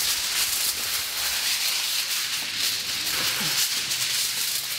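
Aluminium foil crinkling and rustling as sheets are pulled off the roll and spread out flat.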